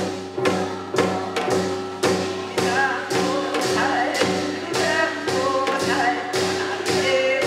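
Korean traditional ritual music for the dead: percussion struck in a steady beat about twice a second over a held tone, with a woman singing over it from about a third of the way in.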